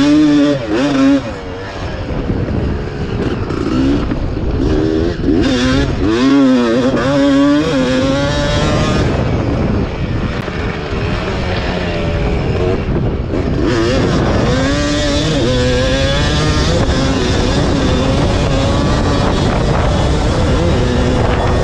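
1991 Yamaha WR250 two-stroke dirt bike engine heard from on board the bike, revving up and down again and again as the throttle is worked, then holding a steadier pitch for the last few seconds.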